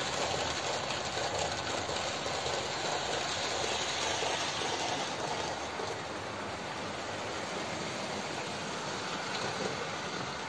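Several OO gauge model trains running on the layout's tracks at once, a steady mechanical running noise that eases slightly after about five seconds.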